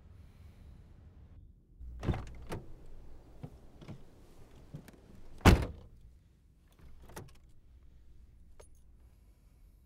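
A person getting into a car: a run of clicks and knocks from the door and seat, then the car door shut with one loud thud about five and a half seconds in, followed by a few lighter clicks.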